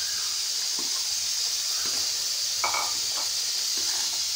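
Semolina sizzling in hot ghee in a metal kadhai as it is tipped in and stirred with a slotted metal spoon: a steady hiss, with a few light scrapes and clinks of the spoon against the pan.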